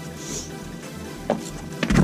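Background electronic music, with a sharp knock about a second in and a louder cluster of knocks near the end.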